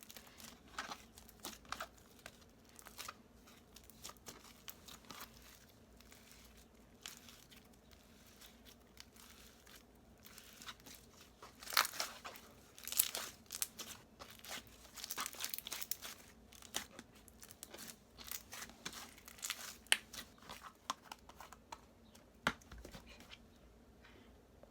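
Glossy slime with foam beads being squished and stretched by hand, giving irregular wet crackles, clicks and pops. They are busiest and loudest in the middle, with a few sharp snaps near the end.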